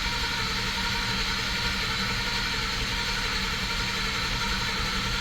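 2011 Ford F-150's 5.0 L V8 cranking steadily on its starter, with the accelerator held to the floor so it does not fire, during a relative compression test. The cranking is even, which the mechanic takes to mean the misfire is not mechanical.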